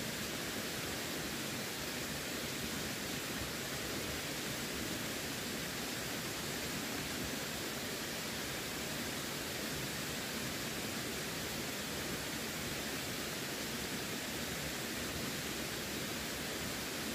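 Running water rushing steadily, an even hiss with no changes or separate splashes.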